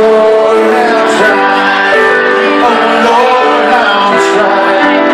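Live piano music with a man singing into a microphone over it: two pianists playing at once, amplified through a PA.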